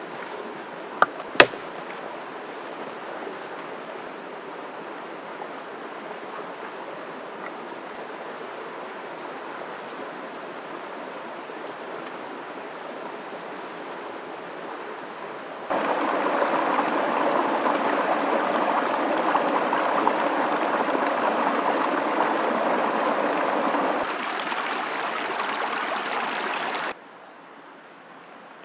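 Steady rushing outdoor noise with no tones, with two sharp knocks about a second in. The rushing gets clearly louder a little past the middle, eases slightly, then cuts off suddenly near the end.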